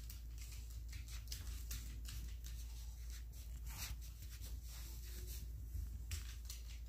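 Faint, irregular clicking of a small poodle's claws on a hardwood floor as it walks and trots about, a few ticks a second, over a steady low hum.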